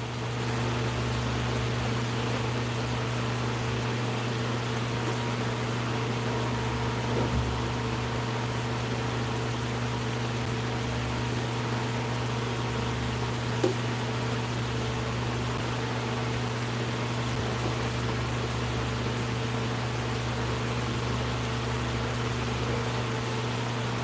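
A fan motor running, a steady low electric hum with a buzz above it and a soft hiss, with one faint tick about two-thirds of the way through.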